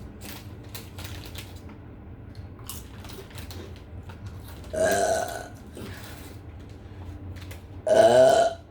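A person burping twice, once about five seconds in and again near the end, each burp lasting about half a second, the second one louder.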